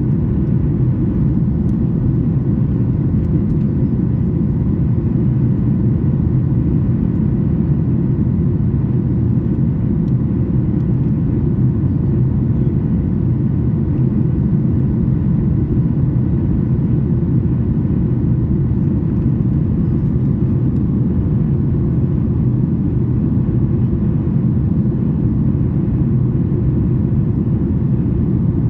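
Steady cabin drone of a Boeing 737 MAX 8 in flight: airflow and CFM LEAP-1B engines heard from a window seat over the wing, a low rumble with faint steady hums above it.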